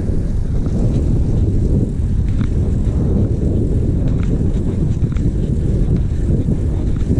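Wind buffeting the microphone of a handlebar camera on a moving bicycle: a steady low rumble, with a few faint ticks.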